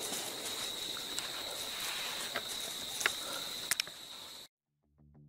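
A steady high-pitched insect trill over a soft outdoor hiss, with a few faint clicks. It cuts off abruptly about four and a half seconds in, and music begins to fade in just before the end.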